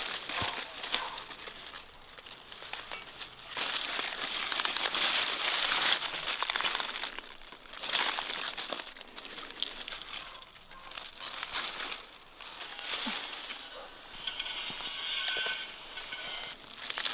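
Beet leaves and stalks rustling and crackling, with soil crumbling off the roots, as beetroots are pulled up by hand from the garden soil, in several spells.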